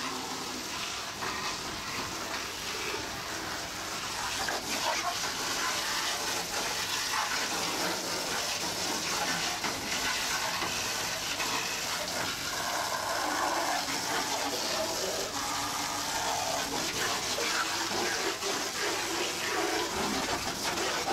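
Water jets from a fire-engine-style water-cannon attraction spraying and splashing, a steady rushing hiss throughout.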